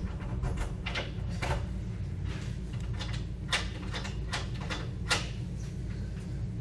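Construction site noise during a concrete pour: a steady low rumble with irregular knocks and clanks, the sharpest a little past halfway and again about three-quarters through.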